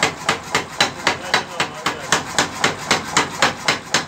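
Mechanical power hammer striking rapidly and evenly, about five blows a second, as its ram hammers the red-hot edge of a tractor blade thin to sharpen it.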